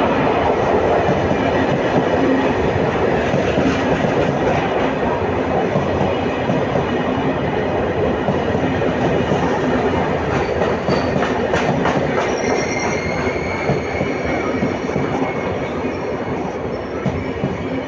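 Diesel-hauled passenger train pulling into a station: steady rumble of wheels on rail that slowly fades as it slows, with a thin high brake and wheel squeal coming in over the second half.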